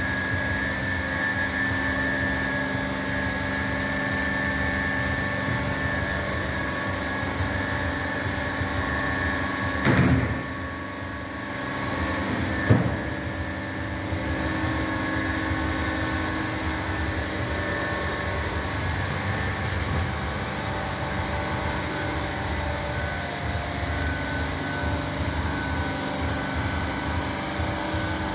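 Tube ice machine running: its refrigeration compressor and pumps make a steady hum with several steady tones. There is a loud knock about a third of the way in, and a sharp click a couple of seconds later.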